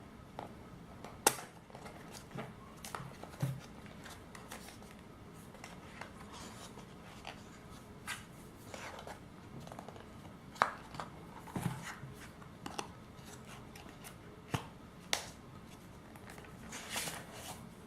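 Hands opening a power bank's box and taking out its packaging: scattered light taps, clicks and rustles, the sharpest about a second in and a longer rustle near the end.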